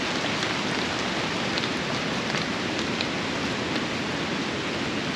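Steady rain falling, with scattered drops tapping close by.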